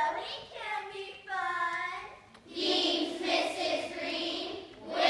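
A chorus of children's voices performing in unison: a long, sliding sung tone in the first half, then chanted words.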